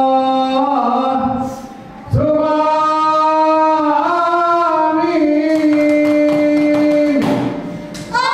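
Ratoh jaroe dancers chanting together a cappella in unison, holding long notes that step up and down in pitch. The singing breaks off twice briefly, with a few sharp hits in the pauses.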